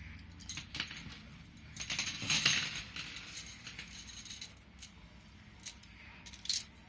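Stainless steel drinking straws clinking and rattling against one another as a handful is handled, with a louder clatter about two seconds in and a sharp clink near the end.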